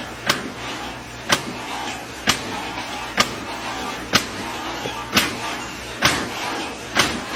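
A regular series of sharp knocks, about one a second, over a steady background hiss.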